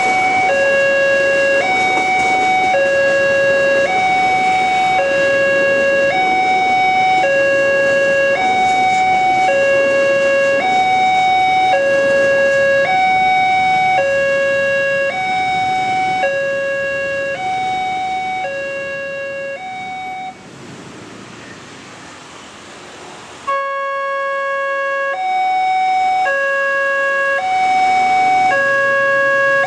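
Electronic warning alarm of an Indonesian railway level crossing, sounding a two-tone alternating 'ding-dong', a low and a higher tone in turn, nearly two tones a second. Motorcycle and traffic noise runs beneath. About two-thirds of the way through the alarm stops, and after a short pause it starts again.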